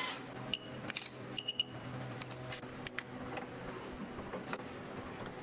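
Scattered small clicks and taps of gloved hands and tools handling cables and screw terminals inside a metal battery box, with a few short, high, ringing ticks.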